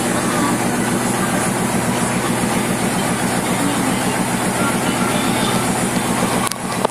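Rice husking machine (paddy huller) running with a steady clattering drone and a low hum, as unhusked paddy is fed through it to crack off the husks. The level dips briefly near the end.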